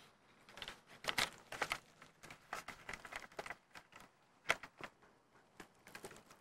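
Irregular rustling and crackling clicks, louder about a second in and again a little past the middle, stopping just before the end.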